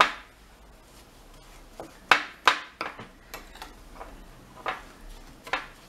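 Metal spoon scraping and clinking against a glass bowl while stirring a thick, gritty sugar-and-cocoa scrub. There are several sharp clinks, the loudest two about two seconds in.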